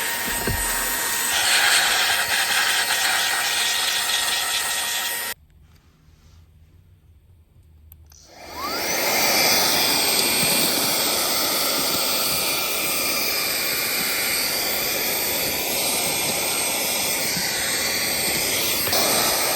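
Handheld cordless car vacuum cleaner running steadily with a high motor whine. It cuts out suddenly about five seconds in, then starts again about three seconds later, its whine rising as it spins up to speed, and runs steadily to the end.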